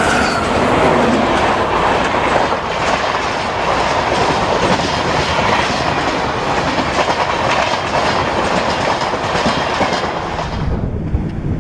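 Diesel-hauled train passing close by: a steady rumble with wheel clatter on the rails. The tail of a horn dies away in the first second. Near the end the higher clatter drops away suddenly, leaving a low rumble.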